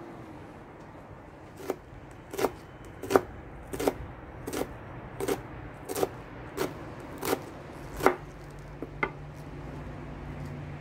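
Chef's knife chopping rolled leafy greens into fine strips on a wooden cutting board: a steady run of about a dozen sharp chops, roughly three every two seconds, the last two softer.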